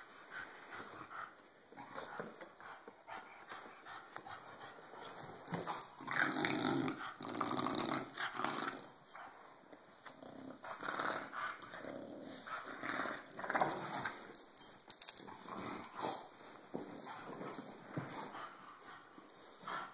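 Two bulldogs play-fighting, growling at each other in uneven bursts; the loudest stretch comes about a third of the way in.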